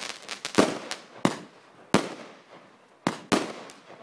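Fireworks bursting in the air: a run of sharp bangs, about five loud ones in four seconds at uneven spacing, each fading away, with fainter pops in between.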